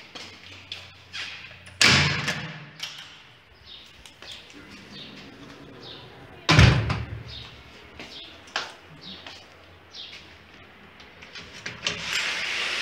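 Footsteps on a tiled floor and metal-framed glass doors being pushed open and swinging shut, with two loud door bangs, about two seconds and six and a half seconds in. Near the end a lever handle is worked and a door opens onto a steady rushing noise.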